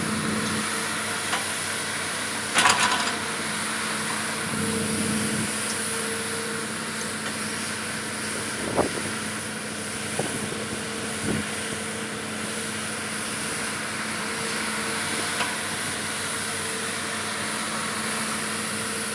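Steady hum of a vehicle engine running, with a short loud burst of noise about two and a half seconds in and a few faint knocks later.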